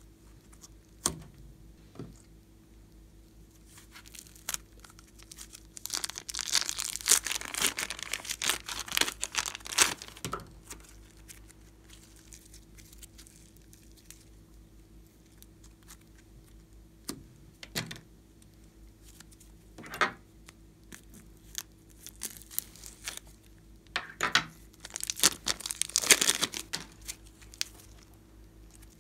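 Hands stretching, folding and squeezing soft glossy slime, giving sticky crackling and popping. The crackling comes in two dense runs, a few seconds in and again near the end, with single wet pops between them.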